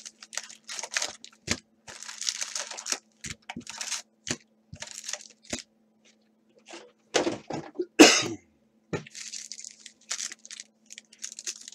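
Packs of 2017 Donruss baseball cards being taken out of their cardboard hobby box and handled: a run of short crinkles, scrapes and taps of wrappers and cardboard, with one loud knock about eight seconds in.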